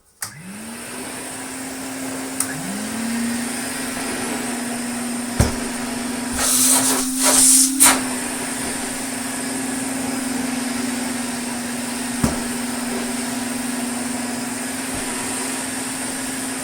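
Two Hoover Constellation vacuum cleaners switched on one after the other, each motor spinning up to a steady hum-and-whine that runs on together. A brief loud rush of air comes around the middle, and there are a few sharp knocks. The machines are running to test how well they float and suck: neither floats well.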